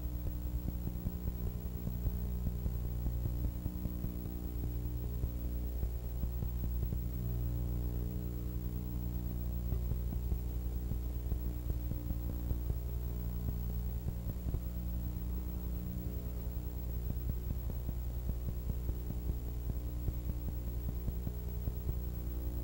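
Steady electrical mains hum, with faint crackle.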